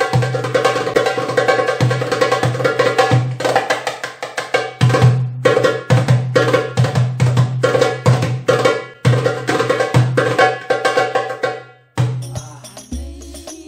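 Darbuka (goblet drum) played by hand in a fast, dense rhythm of deep booming strokes and sharp high taps, stopping suddenly about twelve seconds in.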